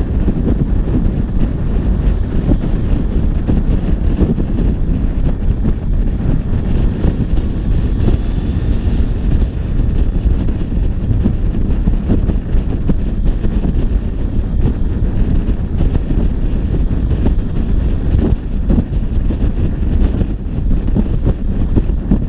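Steady wind noise buffeting the microphone of a Yamaha XSR900 motorcycle cruising at about 100 km/h.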